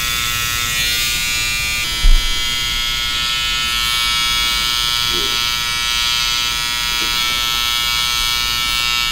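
Cordless T-blade hair trimmer buzzing steadily as it cuts along the beard line on the cheek. A brief low thump about two seconds in.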